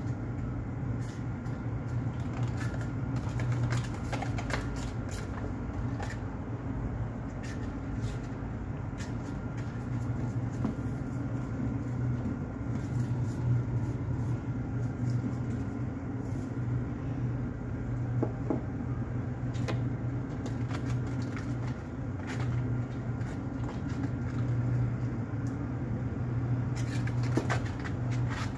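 A steady low machine-like hum, with scattered light clicks and taps.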